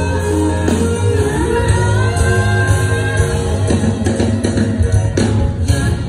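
Live band music over a PA, with heavy bass, drums and a singing voice; the music breaks off at the end.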